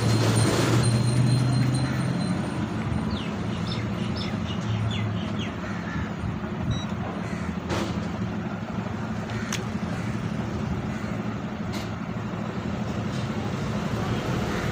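Steady motor-vehicle traffic noise with a low engine-like hum, broken by a few sharp clicks.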